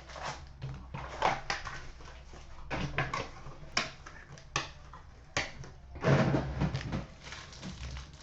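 Irregular rustling, scraping and sharp clicks of a trading-card hobby box and its pack being opened and handled, with a fuller knock about six seconds in, over a faint steady electrical hum.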